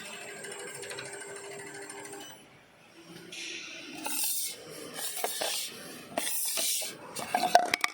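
Automatic round-bottle wrap-around labeling machine running: a steady hum with a held tone for about two seconds, then a run of short hissing, rubbing noises and a few sharp clicks near the end.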